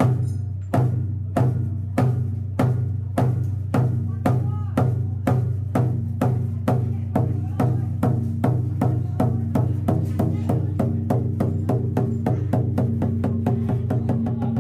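A large ceremonial drum beaten in a steadily accelerating series of strokes, from under two a second to a fast roll, over a steady low ringing. The roll stops suddenly at the end.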